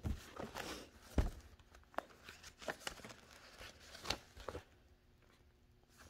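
Paper rustling and crinkling, with scattered light clicks and taps and a soft knock about a second in, as of pages being handled.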